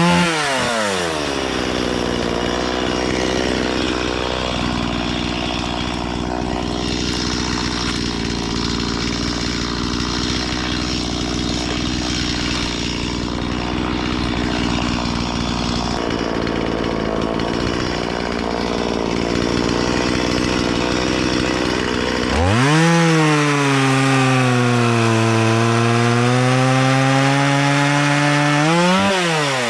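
Stihl chainsaw cutting willow wood. Its engine drops in pitch as the chain bites in, then runs steadily under load for about twenty seconds. Near the end it comes free and revs up, its pitch rising and falling.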